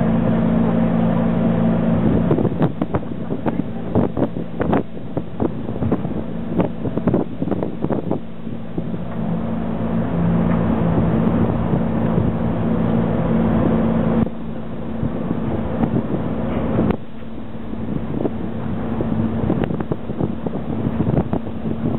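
Ferry's engine droning steadily with a low, even hum, while gusts of wind buffet the microphone. The drone weakens abruptly about two-thirds of the way through.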